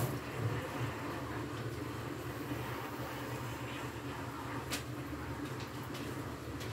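A steady low mechanical hum, with one faint click about four and a half seconds in.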